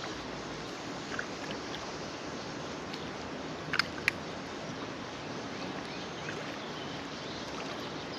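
Steady outdoor background noise, broken about four seconds in by two short sharp clicks a third of a second apart.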